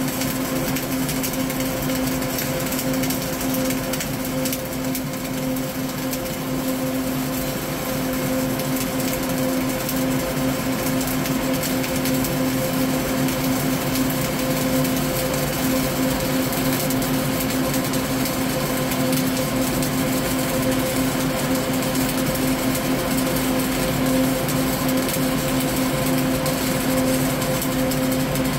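Flux-cored arc welding with CO2 shielding gas on a vertical 3G joint: a continuous, even crackling sizzle from the arc, with fine spatter ticks. A steady hum runs underneath.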